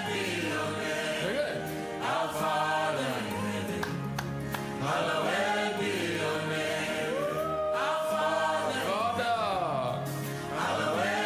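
Gospel choir singing a slow, melodic hymn in long sung phrases over sustained low instrumental chords.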